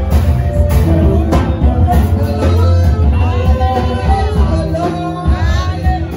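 Live church band music with a singer, loud through the speakers: heavy bass and a steady beat under keyboard and electric guitar.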